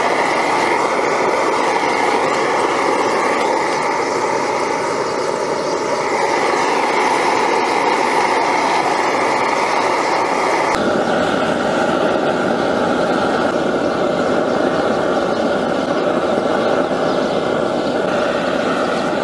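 Gas forge burner running with a steady rushing noise while a steel knife blade heats in the chamber for hardening. The noise shifts abruptly in tone about eleven seconds in.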